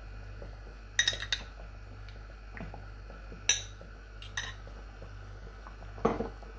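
Metal fork clinking against a small glass bowl of beaten egg whites: several short, sharp clinks spaced irregularly, over a low steady hum.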